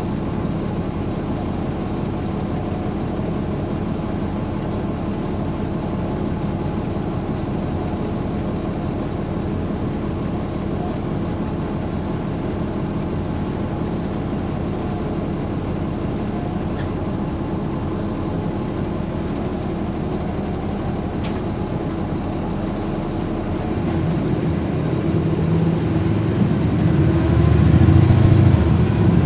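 Diesel bus engine, the Caterpillar C13 ACERT of a 2009 NABI 416.15 transit bus, running steadily. About 24 seconds in it grows louder and deeper, building to the end.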